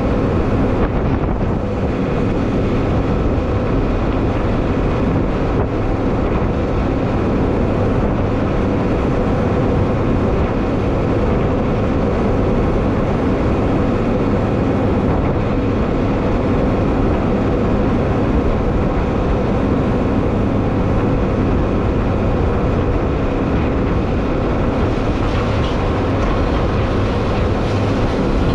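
Farm tractor with a TMR mixer wagon hitched, running steadily under load, a loud, even machine noise.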